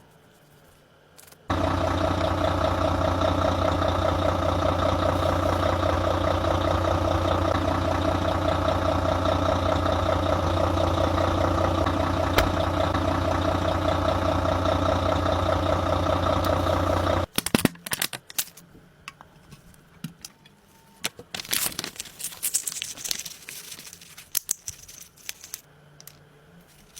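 A machine running at a steady, even pitch, switched on abruptly and cut off just as abruptly after about sixteen seconds, followed by scattered light clicks and rattles.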